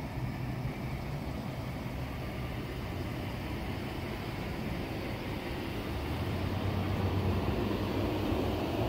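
Steady low rumble of road traffic, growing a little louder about six seconds in.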